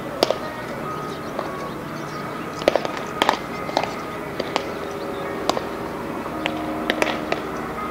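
Baseballs smacking into leather gloves during a game of catch, a sharp pop every second or two, over background music.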